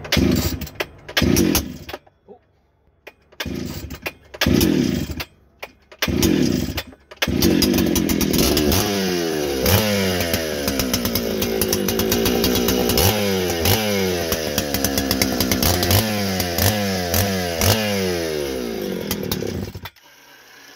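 Efco 199 100cc two-stroke chainsaw being started: a few short bursts with gaps, then from about seven seconds in it runs, revving up and down. It cuts off suddenly near the end when the stop switch is touched by mistake.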